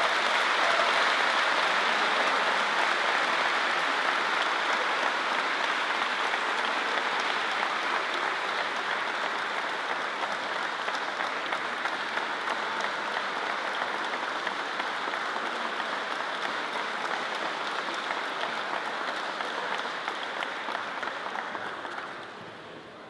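Audience applause in a large hall, slowly thinning out and dropping away near the end.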